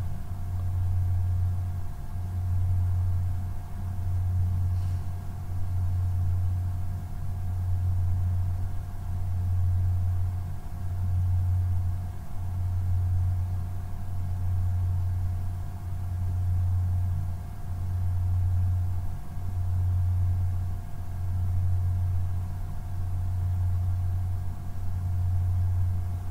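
A low machine hum that swells and dips evenly, about once every second and a half, with faint steady whine tones above it.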